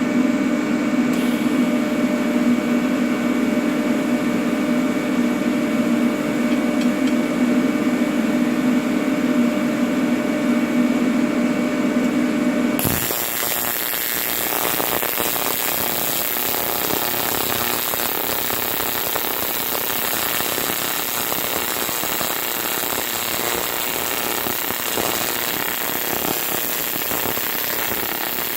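AC TIG welding arc on aluminum: a steady buzz with clear overtones. About halfway through it switches abruptly to a harsher crackling hiss.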